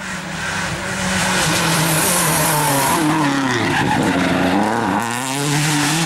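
Rally car engine at high revs with tyre noise as the car passes close, its pitch sliding down as it goes by. Near the end the sound changes abruptly to another engine rising in pitch.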